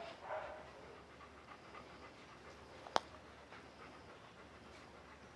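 Golden retriever panting softly, with one sharp click about three seconds in.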